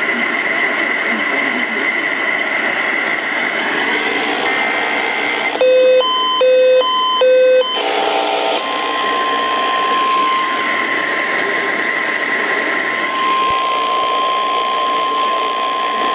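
Weather radio receiving an emergency alert over radio hiss: about six seconds in come three short, buzzy digital data bursts (the SAME alert header), then about nine seconds in a single steady tone near 1 kHz starts and holds. This is the NOAA Weather Radio 1050 Hz warning alarm tone.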